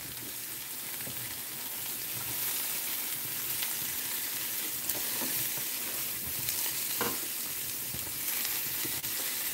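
Halved Brussels sprouts and apple chunks sizzling in a nonstick frying pan as a spatula stirs and turns them, the pieces scraping and rustling across the pan. A light knock about seven seconds in.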